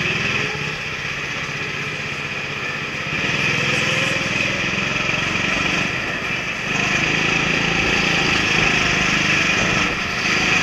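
Go-kart engine running under load as heard from the driver's helmet, steady with the throttle opening up about three seconds in and again near seven seconds as the kart accelerates, then easing briefly near the end.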